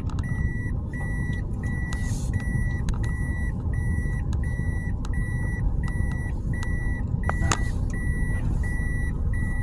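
A car's in-cabin warning chime beeping steadily, about two short high beeps a second, over the low steady rumble of the car.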